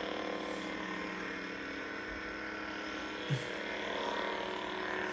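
Steady idle hum of lit Ultrasabers Prophecy and Bellicose lightsabers, a low electric drone of several held tones, with one brief short sound about three seconds in.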